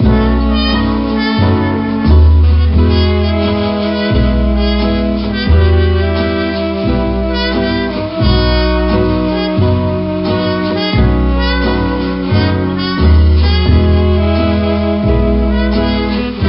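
Background music: a mellow instrumental with a lead wind instrument over guitar and a walking bass line.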